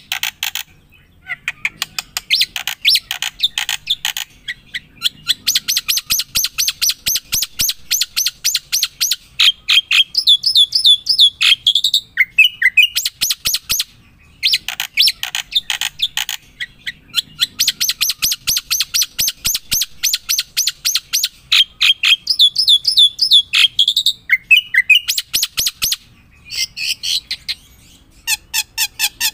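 A bird singing long, fast songs of rapid chirps and trills with rising sweeps. There are two nearly identical songs of about twelve seconds each, with brief pauses between them.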